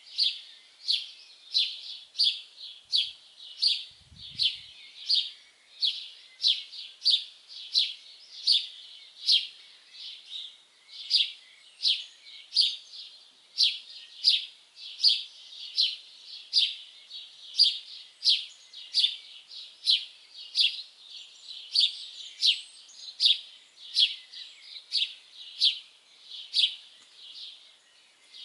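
A bird repeating one short, high chirp over and over at a steady pace, about three chirps every two seconds.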